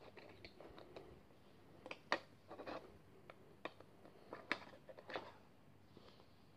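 Small plastic LEGO pieces clicking and rubbing as they are pressed together by hand: a scatter of faint sharp clicks and short scrapes, with the two loudest clicks about two seconds and four and a half seconds in.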